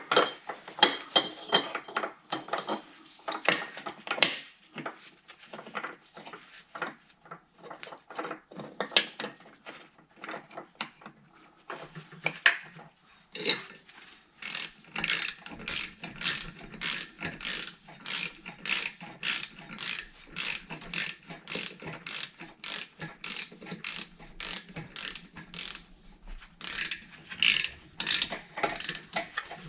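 Hand ratchet wrench clicking as bolts are worked on the snowmobile engine's fan and belt assembly, in an irregular patter of clicks and metal clinks at first, then a steady run of even clicks, two or three a second, from about halfway.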